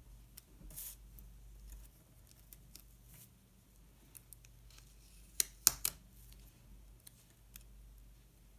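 Paper stickers and planner pages being handled: light rustling and small scattered clicks, with three sharp clicks in quick succession about two-thirds of the way through.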